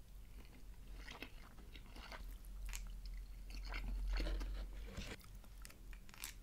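Close-miked chewing of sushi: soft wet mouth clicks and small crunches, irregular throughout.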